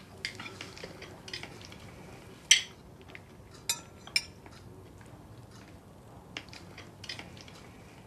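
Knives and forks scraping and clinking on plates during a meal, with a few sharper clinks, the loudest about two and a half seconds in and a ringing one just after.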